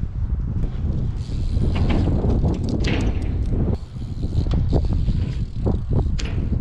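Strong wind rumbling on the microphone, with scattered sharp knocks and clicks of wheels and landings as the rider works a small skate park spot, most of them in the second half.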